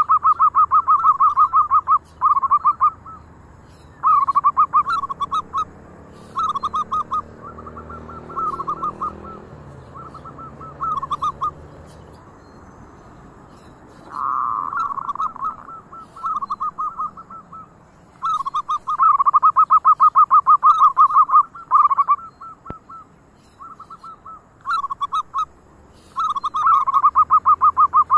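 Zebra doves (perkutut) cooing: repeated runs of fast staccato notes, some long and some short, with short pauses between them.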